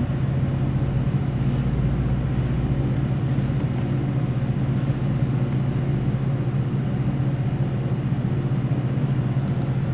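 Steady low mechanical hum, unchanging, with a few faint ticks.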